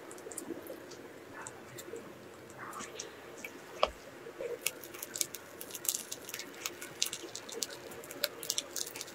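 Soft squishing and sharp little crackling clicks of gloved hands pressing cookie layers and piping whipped cookie cream into a plastic dessert box. The clicks come thicker in the second half.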